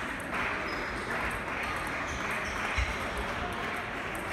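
Table tennis balls clicking off bats and tables, over a steady murmur of voices in the hall.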